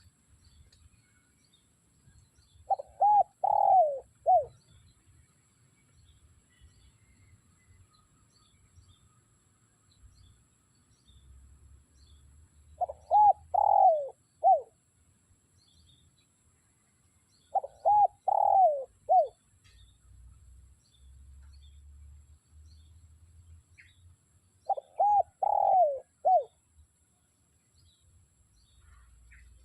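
Spotted dove cooing: four phrases of three or four short, mellow coo notes each, several seconds apart.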